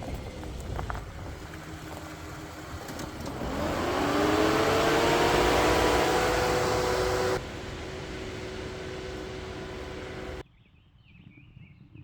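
Vehicle driving, its engine note rising in pitch about three and a half seconds in and then holding steady. It cuts off abruptly near the end, leaving birds chirping in a quiet setting.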